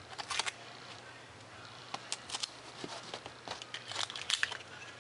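Clear tape being pulled off the roll, torn and pressed onto foam board: short crackling tears and rustles in a few clusters.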